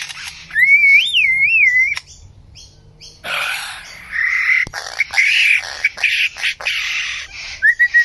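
Lyrebird singing: a clear whistle that glides up and down, then after a short pause a run of harsh, rasping calls with one sharp click among them.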